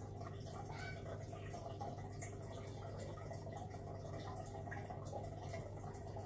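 Aquarium pump humming steadily, with water trickling and small drips and bubbles from the tank's bubble stream.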